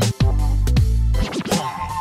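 Music with a steady, bass-heavy beat and a sweeping, scratch-like sound about one and a half seconds in.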